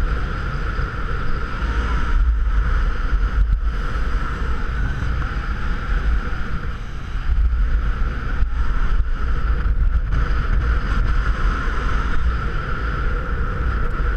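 Steady wind rush buffeting an action camera's microphone while skiing downhill, with skis sliding over groomed snow.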